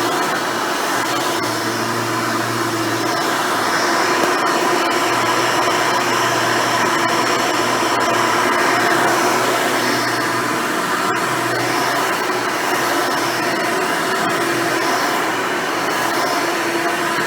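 Hoover Elite upright vacuum cleaner with a dual-row brush roll running steadily, with a few faint ticks.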